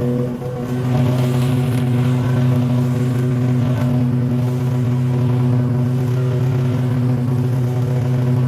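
A mower's petrol engine running steadily at a constant speed, a little louder from about a second in.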